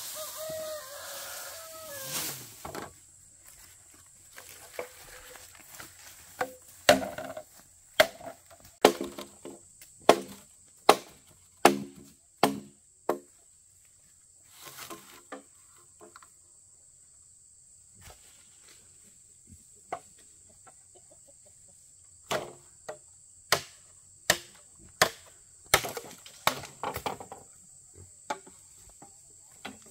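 Repeated sharp blows on wood, about one a second, in two runs with a long pause between. A steady high insect trill runs underneath.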